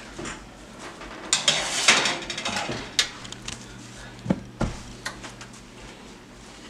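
Kitchen handling noises: a rustle about a second in, then a few separate knocks and clinks of dishes and cookware, the loudest two thudding about four and a half seconds in.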